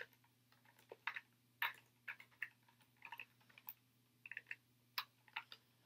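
Faint, irregularly spaced keystrokes on a computer keyboard, about a dozen taps.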